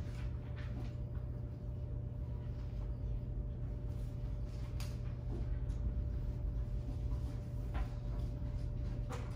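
Room tone: a steady low hum with a faint steady tone over it, and a few faint scattered clicks and knocks.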